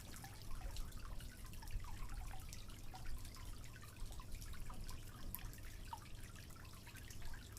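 Faint water dripping and trickling: many small drops plinking at irregular intervals over a steady low rumble.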